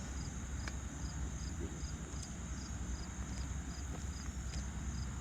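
Crickets chirping in an even rhythm, about two to three chirps a second, over a steady high insect drone, with a low rumble underneath.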